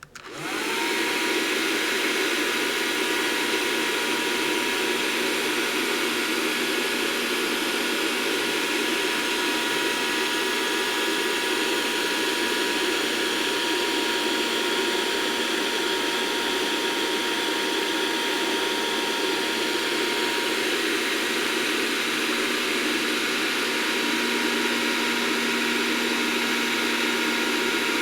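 Electric hair dryer switched on, with a whine that rises as the motor spins up, then running steadily with its fan whine and rushing air. A lower hum joins near the end.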